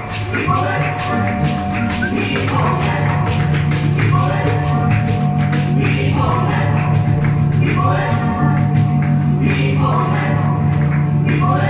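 Live electronic synthesizer music: sustained synth bass notes that shift every couple of seconds under a held higher tone and short melodic phrases, with fast, even, shaker-like percussion ticks.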